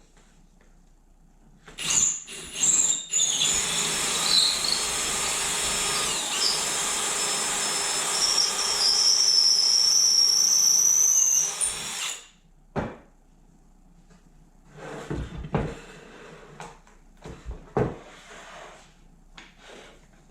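Power drill boring into the wooden bench slats for about ten seconds, a steady run with a high whine that climbs slightly near the end before it stops. A few short knocks follow as the wood is handled.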